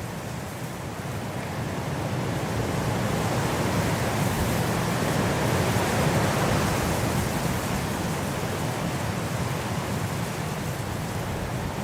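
Winter wind blowing as a steady rushing noise, swelling a few seconds in and easing off again.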